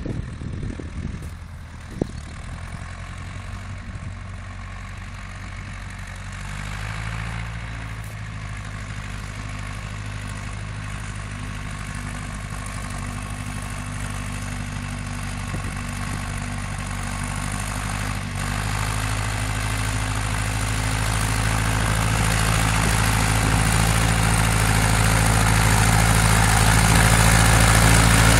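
Ursus C-4011 tractor's diesel engine running steadily while driving across a sloping field, growing steadily louder as it comes closer. There is a single sharp click about two seconds in.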